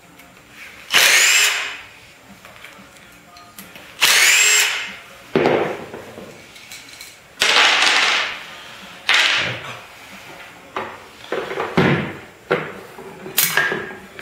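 Stanley cordless drill-driver backing bolts out of a plastic rotor's end cap. It runs in about nine short runs of up to a second each, its motor whine rising and falling in pitch as the trigger is pulled and let go.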